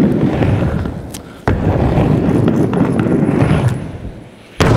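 BMX bike on duct-tape tires rolling over plywood skatepark ramps, a loud, dense rumble. It fades off, then starts again suddenly about a second and a half in and once more near the end.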